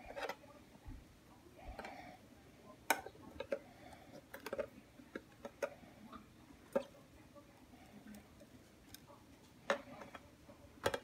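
Light, irregular clicks and taps of long metal tweezers and a clear plastic enclosure being handled, about a dozen in all, the sharpest about three seconds in and near the end.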